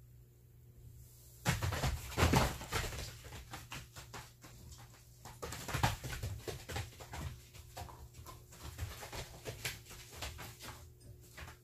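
A Jindo dog and a smaller dog play-fighting on a plastic tarp, starting about a second and a half in: paws scrabbling, the tarp crinkling and rustling, and low growls, loudest about two seconds and six seconds in.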